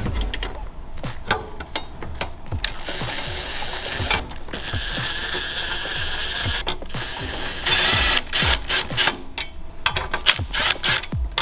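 Makita cordless impact driver hammering in several bursts as it drives fasteners home, with sharp clicks between the bursts.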